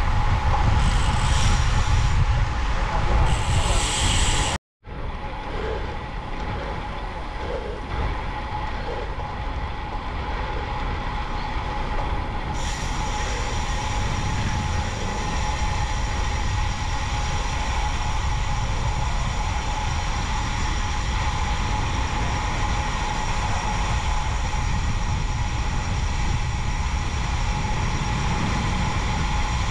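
Steady wind buffeting on the microphone of a bike-mounted or helmet camera, with tyre and road noise from a road bike riding along. The sound cuts out completely for a moment about five seconds in, then carries on.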